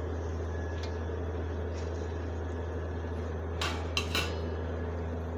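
A metal utensil clinking against a pan, with three sharp clinks about two-thirds of the way through and a couple of fainter taps earlier, over a steady low hum.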